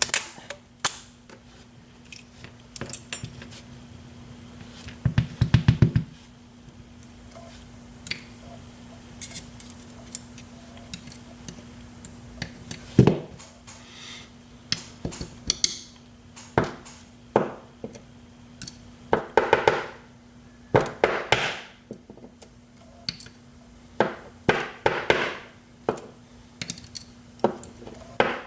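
Small metal parts of a disassembled euro profile lock cylinder (brass plug, pins and springs) clicking and clinking as they are handled and tapped out, with a quick rattle of clicks about five seconds in and several bunches of clinks later on.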